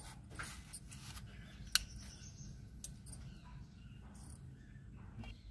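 Kitchen knife peeling the skin off a ripe mango: faint scraping with a few sharp clicks, the loudest a little under two seconds in.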